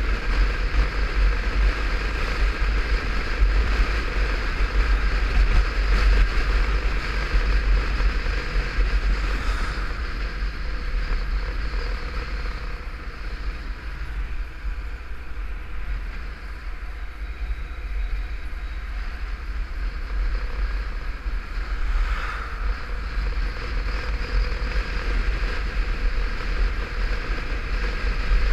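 Wind buffeting a helmet-mounted camera on a moving motorcycle, a heavy low rumble over the bike's engine and tyre noise. It eases for a few seconds in the middle, then picks up again.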